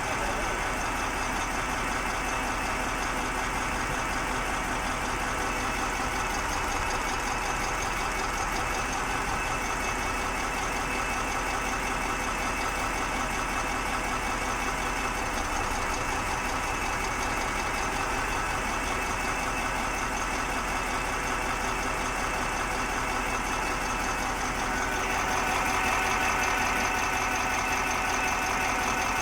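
KAMAZ truck diesel engine idling steadily with a knock, the sign of a failed fuel injector. About 25 seconds in it gets a little louder.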